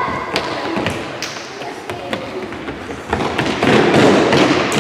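Scattered taps and light thuds of children's feet on a sports-hall floor, echoing in the hall, with a swell of background hall noise near the end.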